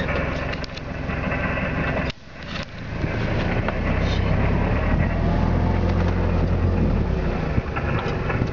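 Safari vehicle's engine running. It drops away briefly about two seconds in, then comes back louder and holds steady.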